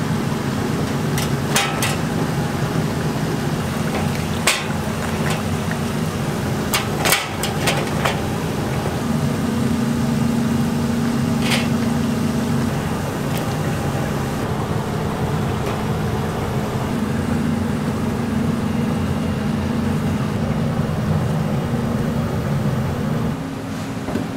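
Steady low machine hum of a commercial kitchen over the sizzle of youtiao deep-frying in oil, with a few sharp clicks of stainless-steel tongs against the fryer and rack.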